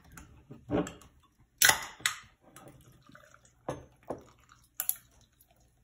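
Six short, sharp clicks or light knocks spread over about five seconds, some close together in pairs.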